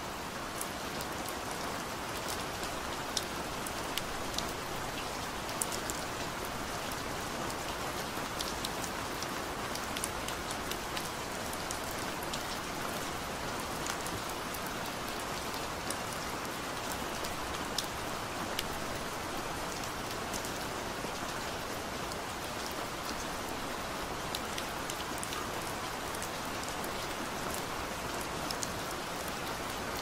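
Gentle, steady rain hissing evenly, with scattered single drops ticking sharply on top.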